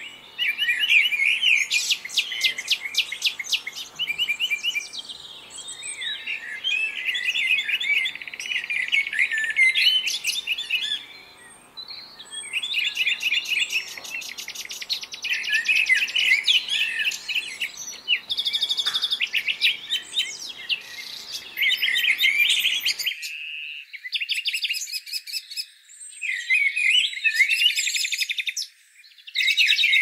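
Many small songbirds chirping and twittering at once, a dense run of overlapping rapid high trills and calls with a few short lulls.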